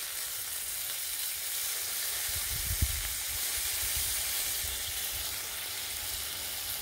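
Tri-tip steaks searing on a hot Blackstone flat-top griddle, a steady sizzle: the final high-heat sear of a reverse sear. A brief low thump comes about three seconds in.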